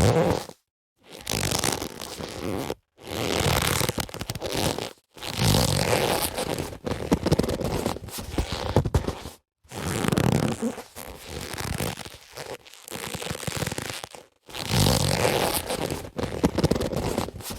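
Leather boxing gloves handled and rubbed against each other: rough scuffing and rubbing in bursts of one to two seconds, separated by short silences, with a few sharper slaps within the bursts.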